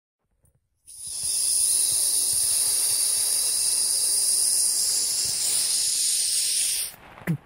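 Intro sound effect: a loud, steady hiss like rushing air, starting about a second in and cutting off after about six seconds, followed by a quick falling sweep.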